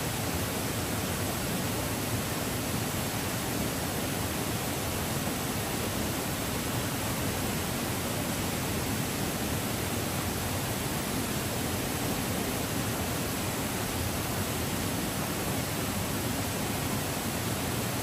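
Waterfall: falling water making a steady, even rush of noise.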